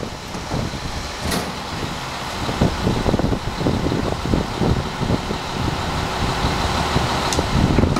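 Autocar ACX garbage truck with a split Heil Multitask SL body idling at the curb, its engine rumble broken up by heavy wind buffeting on the microphone. Two brief hisses come about a second in and near the end.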